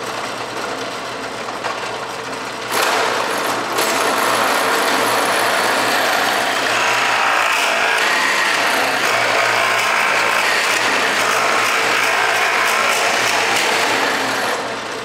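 Drill press motor running with a steady hum. About three seconds in, the bit starts boring into a wooden 2x4 as it is fed down, a loud steady cutting noise that goes on until near the end, when it stops and the motor hum is left.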